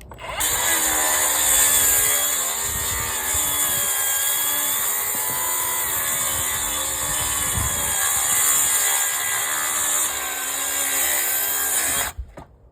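Milwaukee track saw cutting along its rail through a row of deck boards: the motor starts suddenly, runs steadily under load for about twelve seconds with its pitch wavering a little as the blade bites, then stops abruptly near the end.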